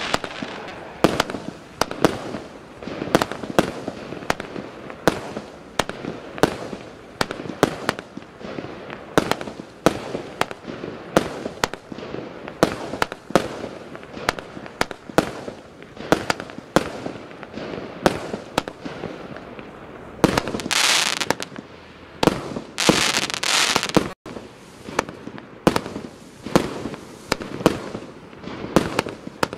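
A Вогнеграй SU 07-50 50-shot fireworks cake firing 20–40 mm calibre shots in quick succession: a steady string of sharp launch thumps and aerial bursts, about one to two a second. About two-thirds of the way through come two hissing, crackling stretches of about a second each.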